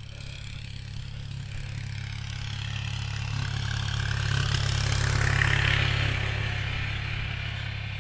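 A small utility vehicle's engine running as it drives along a steel-mesh boardwalk and passes close by. It grows louder to a peak about five to six seconds in.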